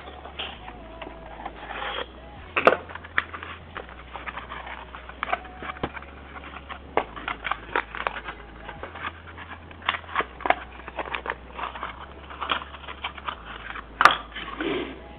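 Hands handling computer parts: irregular small clicks, taps and rustles, with two sharper clicks, one about three seconds in and one near the end.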